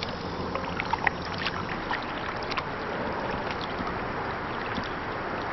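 Canoe being paddled: paddle strokes in the water with scattered small drips, splashes and knocks, the sharpest about a second in, over a steady background hiss.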